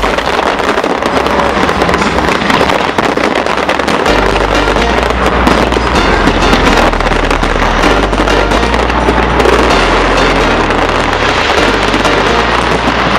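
A fireworks display with dense crackling and bursts, layered over music with a bass line that comes in about four seconds in.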